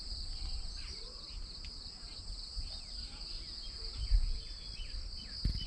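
Steady high-pitched insect chorus of crickets or cicadas, with scattered short bird chirps over it. A low rumble runs underneath, and there is a single knock near the end.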